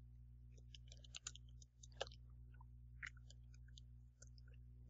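Faint, irregular keystrokes on a computer keyboard as a phrase is typed, over a steady low hum.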